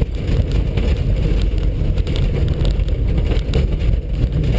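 VW Passat 2.0-litre petrol engine running steadily under load, heard from inside the cabin as the car is driven over a dirt autocross track, with a few sharp ticks mixed into the steady drone.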